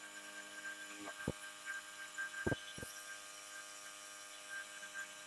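Milling machine spindle running with a steady hum and whine while a chamfer mill works on a brass part. A few short sharp clicks come in the first three seconds.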